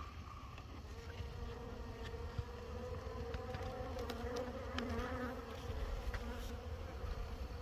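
Honeybees buzzing as they pour out of a freshly opened hive entrance disc, a steady buzz that grows a little louder as more bees take to the air. The bees are agitated after being moved and go for the beekeeper.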